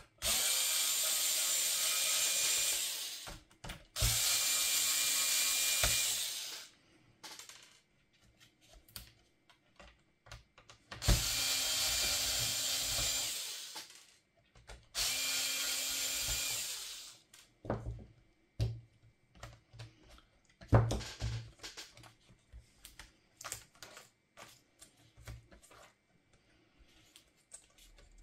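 Small electric screwdriver running in four bursts of about three seconds each, turning laptop screws, each burst tailing off as it stops. Scattered clicks and knocks of small parts being handled follow.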